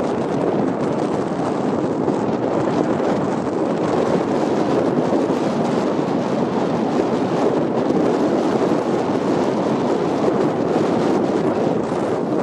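Steady rush of wind on the microphone mixed with the road noise of a moving car, even throughout with no engine note standing out.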